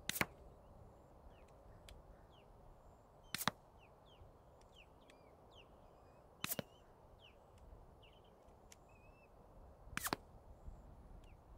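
Four suppressed shots from a Glock 19X 9mm pistol fitted with a CGS Group Kraken 9 suppressor, firing Freedom Munitions 165-grain Hush subsonic ammunition, about three seconds apart. Each is a brief, sharp report.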